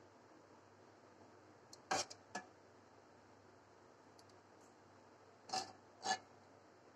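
Serving spoon clinking against dishware as shrimp curry is spooned into a serving dish: three quick clinks about two seconds in, then two more near the end, over faint room tone.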